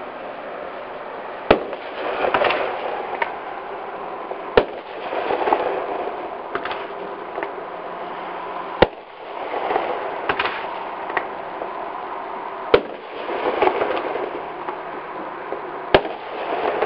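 Aerial fireworks going off: five sharp bangs spaced a few seconds apart, each followed by a second or so of softer noise.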